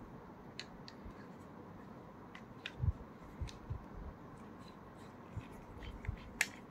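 Handling noise as small gadgets and their packaging are handled: scattered light clicks and a few soft low knocks. The loudest knock comes about three seconds in, and there is a sharp click near the end.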